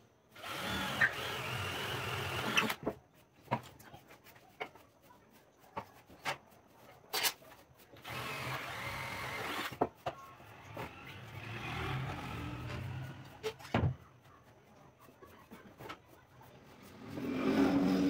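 Cordless drill with a 7 mm bit boring a hole through pine boards, in short runs of about two seconds each, starting about a second in and again around eight seconds in, with a fainter run after. Sharp clicks and knocks of wood and tools being handled fall between the runs.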